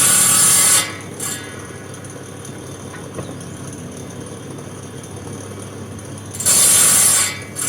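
Wood lathe running steadily, with a cutting tool biting hard into the spinning wooden table leg twice, each cut a loud hissing screech of under a second.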